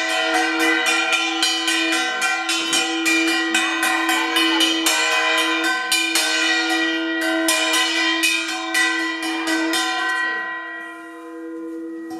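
Brass puja hand bell (ghanta) rung fast and steadily, about four or five strokes a second, over a ringing tone. The strokes stop a little over ten seconds in and the ringing lingers.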